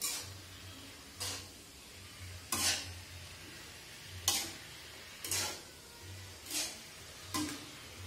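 Long metal spatula scraping and turning vegetables in a steel wok during a dry stir-fry, one stroke about every second or so, with a faint sizzle of frying underneath.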